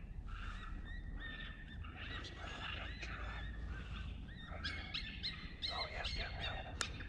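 Coyote yips and howls: a run of short, high, wavering cries that come thicker in the second half, with a sharp click near the end.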